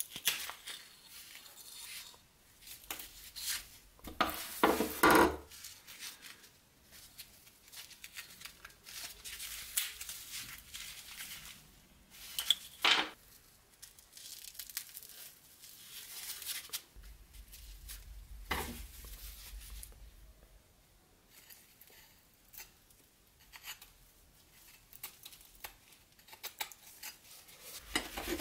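Old dried wooden handle scales cracking and crumbling as they are pried off a rusted knife tang by gloved hands, with rust flakes scraping and crackling. The sounds come in irregular bursts, the loudest about four to five seconds in and about thirteen seconds in.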